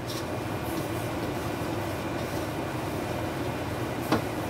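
Steady hum and hiss with no pitch changes, broken by two brief clicks, one near the start and one near the end.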